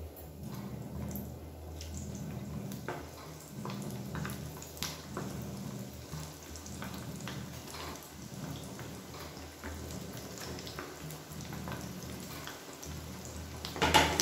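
Vegetable balls deep-frying in hot oil in a kadai: steady bubbling and sizzling with scattered crackling pops over a low hum. There is one sharp knock near the end.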